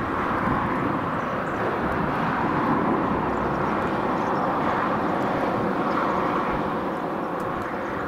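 Strong wind blowing, a steady rushing noise with low buffeting and a faint steady hum underneath.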